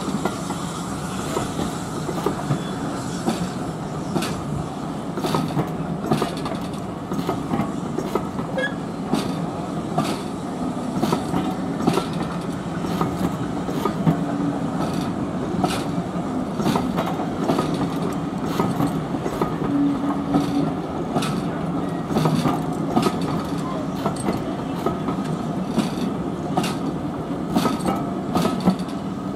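LMS passenger coaches rolling past on the rails: a steady rumble, with the wheels clicking sharply over the rail joints again and again.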